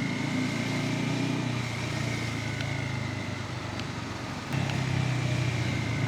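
Bajaj Pulsar N250's 249 cc single-cylinder engine running under way on the road. The engine note eases off after about three seconds and comes back up sharply about four and a half seconds in as the throttle is opened again.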